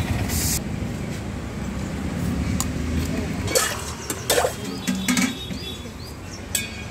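Stainless-steel ladles and pots clinking a few times as food is served, with several sharp clinks in the middle, over a steady low rumble of road traffic.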